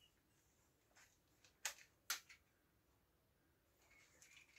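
Near silence, with two faint clicks a little under two seconds in from a cheap plastic toy BB pistol being handled; the pistol has just broken.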